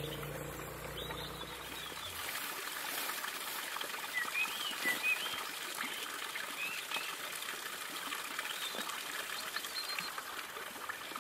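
Water trickling steadily from the spout of a stone mountain fountain, with a few short bird chirps over it. A low steady hum in the first two seconds cuts off suddenly.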